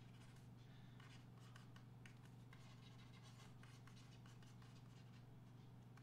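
Near silence: faint scratching and ticking from a pointing device as words are handwritten on a computer screen, over a steady low hum.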